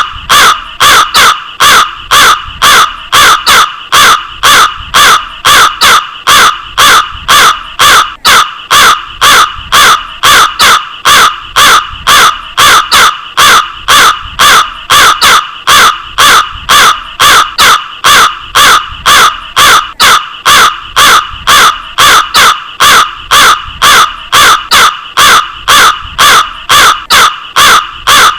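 Crow cawing over and over: a loud, even run of short, harsh caws, about two to three a second.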